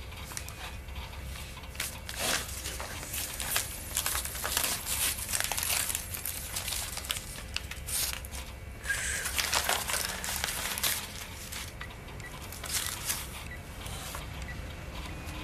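Paper banknotes rustling and crinkling as they are handled and leafed through, in irregular bursts from about two seconds in.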